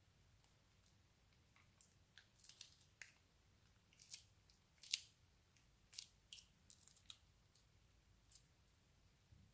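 Faint, scattered crisp clicks and crackles as a plastic piping bag is snipped with scissors and squeezed out into slime, the sharpest snap about five seconds in.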